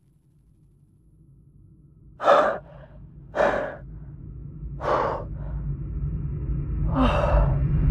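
A frightened man's heavy, gasping breaths: four separate breaths after a short silence, over a low rumble that grows steadily louder.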